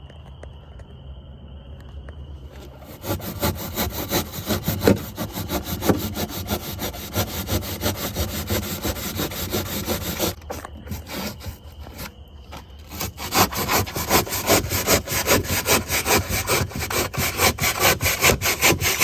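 A saw cutting through cured two-part polyurethane flotation foam, trimming off the excess, in quick back-and-forth strokes. It starts about three seconds in, pauses for a few seconds about ten seconds in, then resumes.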